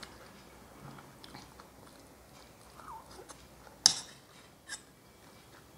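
Quiet mouth sounds of a person eating a soft, syrupy rosogolla off a metal spoon, with small wet clicks. A sharp click about four seconds in, as the spoon goes into the mouth, and a smaller one about a second later.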